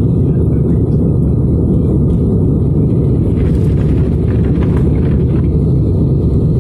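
Airliner taking off, a steady low rumble of jet engines at take-off power and wheels on the runway.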